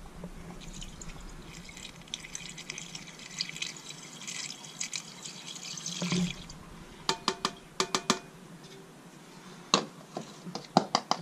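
Engine flush pouring from a metal can through a plastic funnel into the engine's oil filler: a trickling, gurgling pour lasting about five seconds. After it, several runs of sharp, slightly ringing clinks as the can and funnel are handled.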